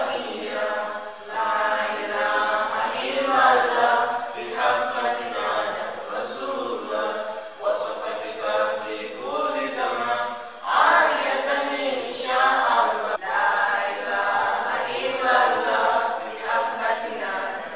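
Unaccompanied melodic vocal chanting with no instruments, in long phrases that bend up and down in pitch, broken by a few short pauses.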